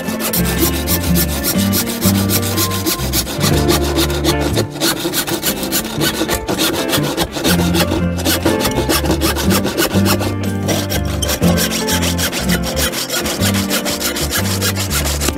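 Hand saw cutting back and forth across a hardwood fretboard, a steady rasp of repeated strokes through the wood, with background music and a stepping bass line underneath.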